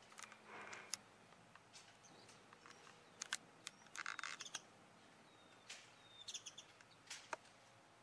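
Faint high cheeping of white-eye nestlings begging at the nest as an adult feeds them, strongest in a short burst about four seconds in, with scattered short chirps and soft clicks around it.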